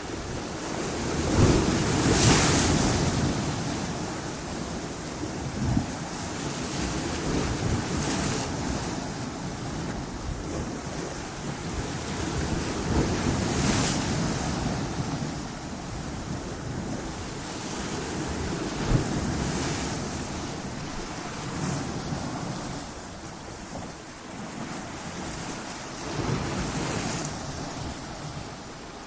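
Ocean waves breaking on a beach: a steady wash of surf with a crash swelling and fading about every five or six seconds, the biggest one about two seconds in.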